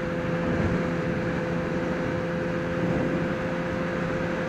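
Motorcycle running at a steady cruising speed, heard from inside the rider's helmet: an engine hum at an unchanging pitch under an even rush of noise.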